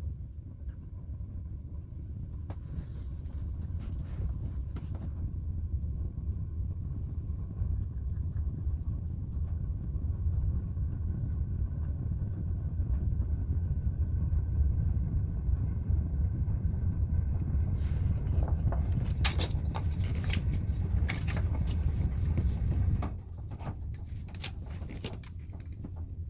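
Fire burning in a fireplace: a low rumble that grows louder, with sharp crackles and snaps in the later part, until the rumble drops away suddenly.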